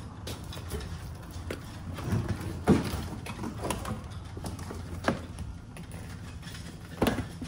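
Irregular sharp knocks and clinks of hand tools and parts against metal during engine work, with three louder knocks, over a low steady hum.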